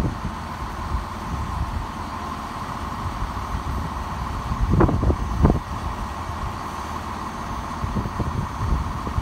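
Class 170 Turbostar diesel multiple unit idling at the platform: a steady low diesel hum with a constant whine over it. Two louder rumbles come about five seconds in.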